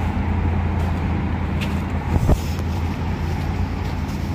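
Steady low machine hum, with one short knock about two seconds in.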